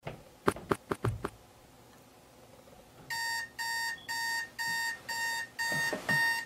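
Digital alarm clock beeping in evenly spaced electronic pulses, about two a second, starting about three seconds in once the display turns to 8:00. A couple of dull knocks come near the end as a hand slaps the button on top of the clock. A few sharp clicks sound in the first second or so.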